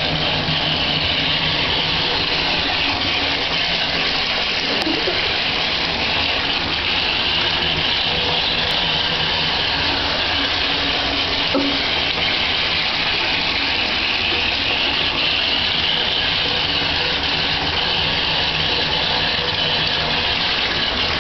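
Bathtub tap running steadily into the bathwater: a continuous, even rush of water.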